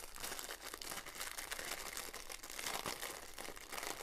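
Thin clear plastic bag crinkling and crackling continuously as hands work at it to open it.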